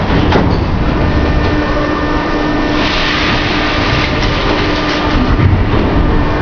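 Old Moscow metro car standing at the platform with its doors closed: a steady low rumble and hum from the car's machinery, with a short hiss about three seconds in.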